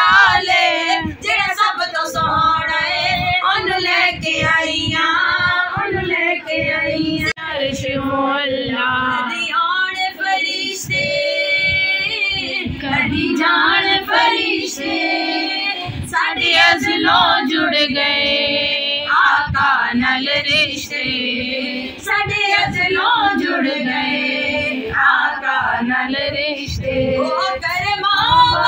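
Women's voices singing a naat together at a milad.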